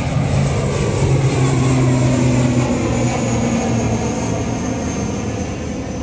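ATR-type twin-turboprop airliner climbing away overhead, its propellers and engines giving a loud, steady drone whose pitch slowly falls as it recedes.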